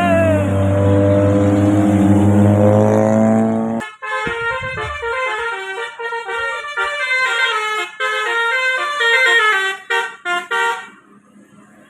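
A bus's telolet musical air horn with 18 trumpets plays a quick, stepped melody of horn notes for about seven seconds, then cuts off near the end. Before it, for the first four seconds, a low engine-like drone rises slowly in pitch as the bus accelerates.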